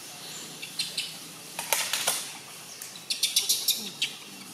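Dry leaf litter crackling and rustling in three short bursts of quick, sharp crackles, over a steady outdoor background.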